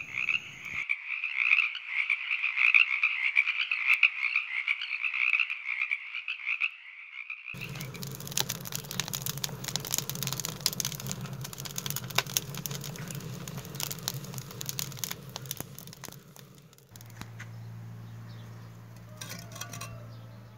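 Frogs calling in a dense, rapidly pulsing chorus that cuts off suddenly about seven seconds in. After that comes a crackling of many sharp clicks over a low hum.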